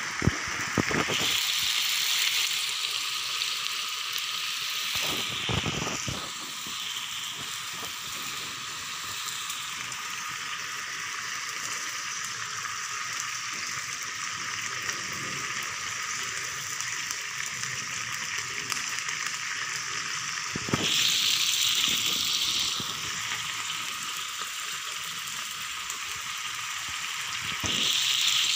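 Beef tapa slices simmering in their soy-sauce and vinegar marinade in a frying pan, the liquid bubbling and sizzling with a steady hiss that swells in spells. A few short knocks break through now and then.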